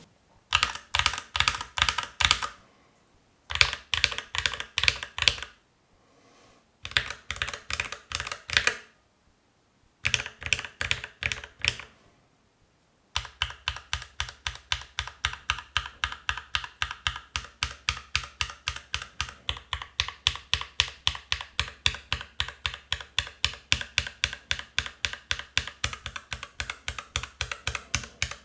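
Mechanical keyboard with linear switches being typed on: four short runs of keystrokes with pauses between them, then steady continuous typing at about four to five keystrokes a second from about halfway in.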